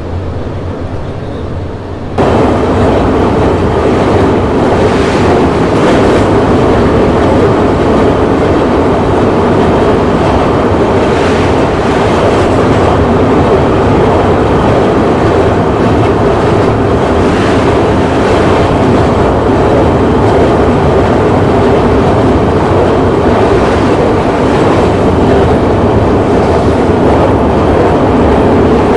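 Express train running at speed over a steel truss bridge: a loud, steady rumble of wheels on rails, heard close to the track. It jumps suddenly louder about two seconds in, with faint clicks coming in pairs every few seconds.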